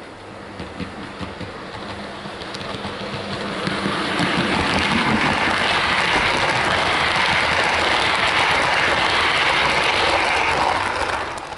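OO gauge model train running past on the track: a Hornby Class 87 electric locomotive with Mark 3 coaches and a DVT. It makes an even rushing rumble of wheels on rail that grows louder over the first few seconds as it approaches, holds steady, then drops away sharply near the end.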